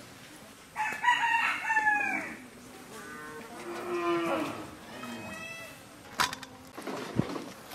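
A rooster crows, one falling call of about a second and a half, followed by a second, lower and longer call from another farm animal. A sharp knock comes near the end.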